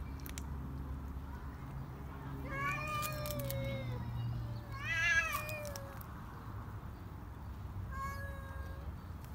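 Cats yowling at each other in hostile tension: three long, drawn-out yowls about a second each, the middle one the loudest, rising then falling in pitch.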